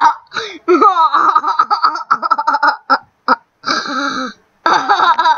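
Children laughing hard, in repeated bursts of high-pitched giggling with short breaks, stopping abruptly near the end.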